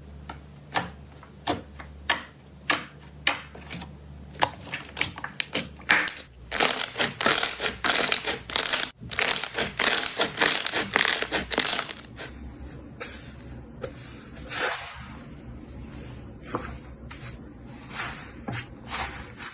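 Slime being pressed and squeezed by hand: sharp sticky pops about twice a second at first, then a dense run of crackling squishes from about six to twelve seconds in, then softer scattered pops.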